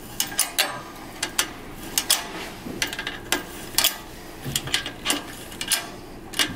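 Sharp metallic clicks of a wrench working the rear axle nut of an e-bike's Bafang hub motor as the nut is spun down and snugged, about one or two clicks a second at an uneven pace.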